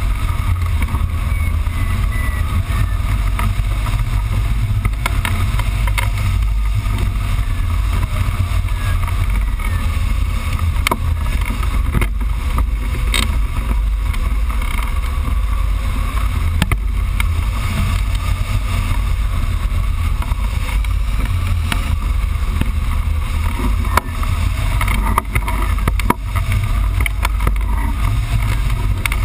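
Airflow rushing past a glider-mounted camera during hang glider flight: steady, low buffeting wind noise on the microphone.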